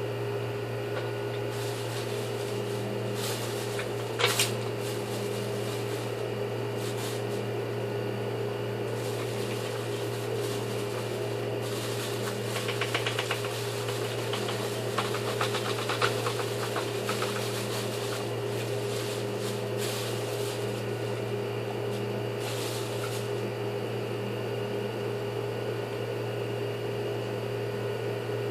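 Steady electrical hum with a sharp click about four seconds in, and a spell of quick rattling clicks from about twelve to seventeen seconds in, as from small parts being handled.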